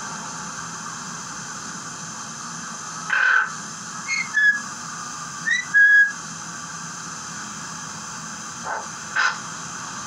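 Eclectus parrot giving a string of short whistles, several gliding upward in pitch, the longest held briefly about six seconds in, over a steady background hiss.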